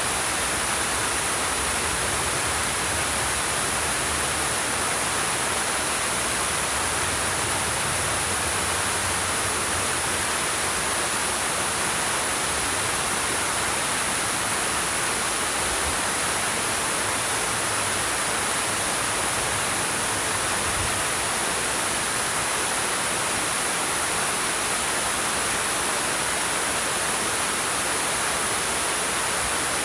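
Waterfall splashing down over rocks: a steady, unbroken rush of falling water with a strong hiss in the treble.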